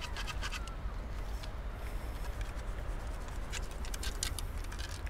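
Metal sand scoop being shaken to sift dry sand, with clusters of scratchy clicks and rattles near the start and again near the end, over a steady low rumble.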